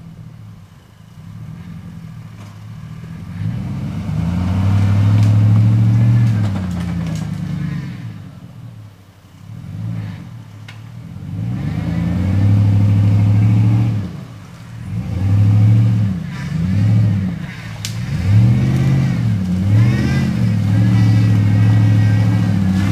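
An off-road car's engine revving hard in repeated surges, its pitch climbing and falling again and again, with short drops in between.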